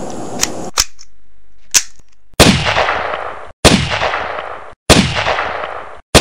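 Gunshot sound effects: four loud shots about a second and a quarter apart, each with a long echoing tail. Two short sharp clicks come before them, after the outdoor background cuts out just under a second in.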